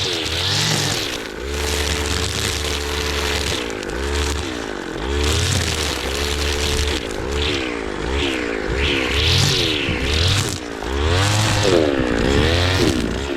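Engine of a machine working the ground, running continuously with its pitch swinging up and down repeatedly as the load changes.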